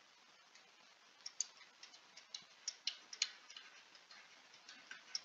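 Stylus tip tapping and sliding on a tablet screen while handwriting, giving faint, sharp, irregular ticks that bunch together from about a second in to three and a half seconds, with a couple more near the end.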